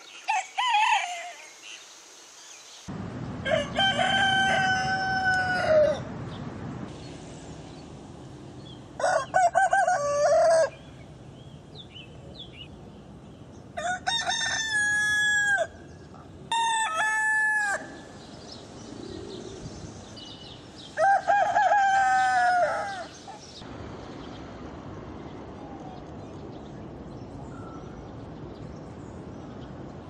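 Roosters crowing: about six cock-a-doodle-doos of one to two and a half seconds each, a few seconds apart, from several different birds.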